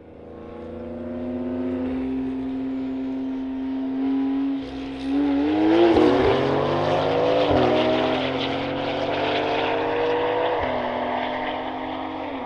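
Porsche 911 twin-turbo flat-six engines fade in held at steady high revs, then accelerate hard: the pitch climbs and drops back at each upshift, about three times.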